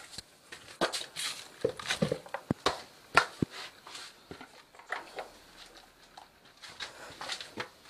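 Oyster mushroom clusters being cut and broken off grow bags with a knife and gathered into a plastic bowl: irregular sharp snaps, crackles and knocks.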